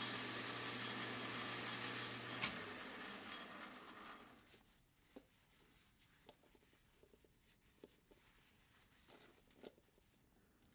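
Oiled emery cloth hissing against a spinning metal hemisphere on the lathe, over the steady hum of the running lathe. A click about two and a half seconds in, after which the hiss and hum fade out over a couple of seconds as the lathe stops, leaving faint rubbing and small ticks from a shop towel wiping the part.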